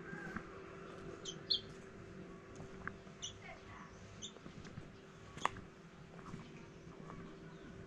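Faint morning outdoor ambience: a few short, high bird chirps over a steady low hum, with one sharp click about five and a half seconds in.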